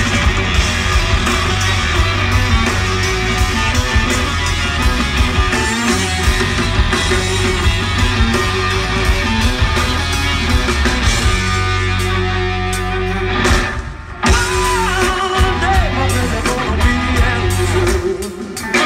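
Live rock band playing through the stage PA, heard from the crowd: electric guitar, bass guitar and drums. The music drops out for two short breaks, the second near the end.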